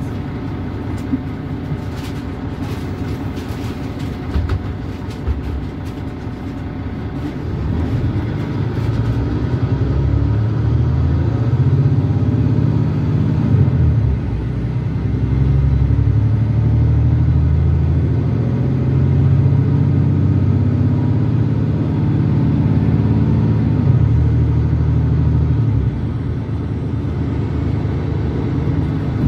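Diesel engine of a Mercedes-Benz Citaro C2 G articulated bus with a Voith automatic transmission, pulling under acceleration. It grows louder about a third of the way in, with a brief dip midway, and eases off near the end. A few light clicks and rattles sound in the first seconds.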